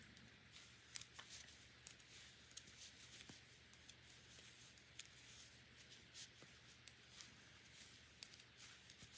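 Near silence with faint, irregular clicks of metal knitting needles as stitches are knitted and slipped along a rib round.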